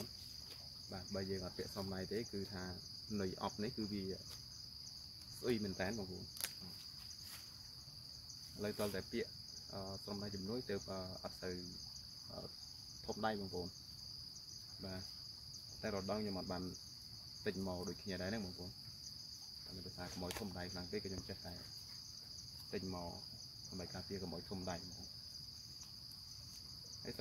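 Steady high-pitched insect chorus, typical of crickets, droning without a break, with a man's voice talking in short bursts over it.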